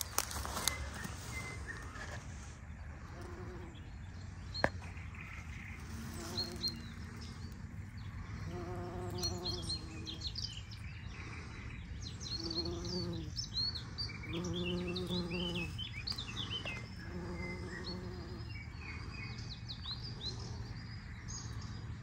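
Bumblebee buzzing in short bouts of about a second, seven or so times, as it works the flowers. Small birds chirp behind it.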